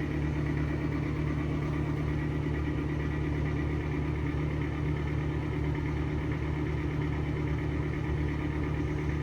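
Exhaust fan running with a steady, unchanging drone of several low tones, the noise of worn bearings that are probably bad though not yet squeaking.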